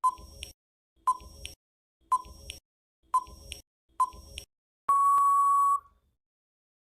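Countdown timer sound effect: five short beeps one second apart, then one longer, steady beep that ends the count.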